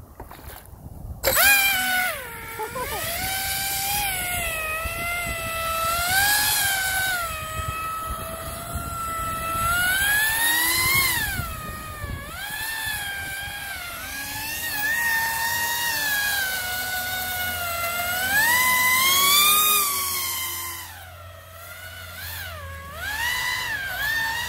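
Radio-controlled fan boat's electric motor and air propeller running on a 4S battery: a loud, high-pitched scream that starts about a second in and rises and falls in pitch again and again with the throttle, easing off briefly twice.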